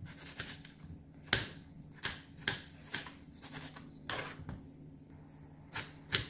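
Kitchen knife chopping tomatoes on a wooden cutting board: a series of irregular knocks as the blade strikes the board, roughly one or two a second.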